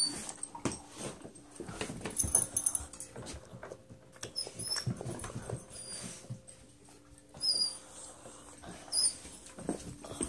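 Pet dog whining in short high-pitched squeaks, several times, among scuffling and knocks from a phone being carried about.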